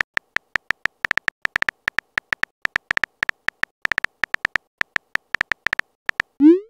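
Simulated phone-keyboard typing sound effect: short, tone-like clicks at an uneven pace of about six a second, one per letter typed. Near the end it stops and a short rising swoosh plays as the message is sent.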